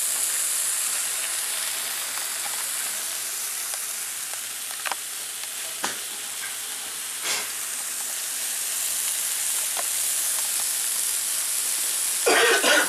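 Swordfish steaks sizzling on a hot ridged grill plate, a steady high frying hiss. A few short light clicks come in the middle, and a louder burst of noise comes near the end.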